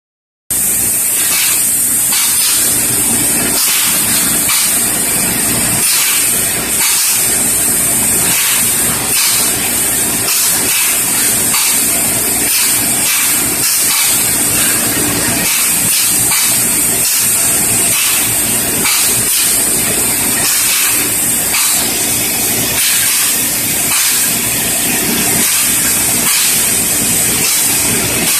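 Paint spray gun spraying under high pressure: a loud, steady hiss, strongest high up, broken by many very brief dips.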